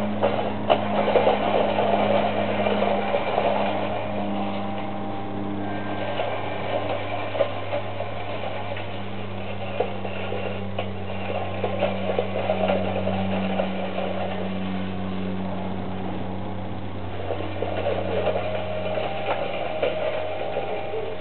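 Manual reel lawn mower being pushed through grass and fallen leaves: the spinning blade reel makes a dense whirring clatter that swells and eases with each push. A steady low hum runs underneath.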